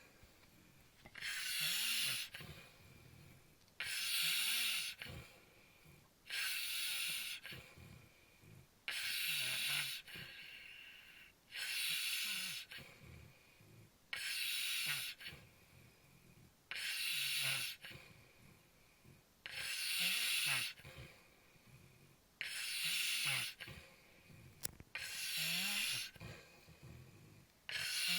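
A sleeper snoring: a loud, hissing breath about every two to three seconds, roughly ten in all, with a lower, softer rumble between them.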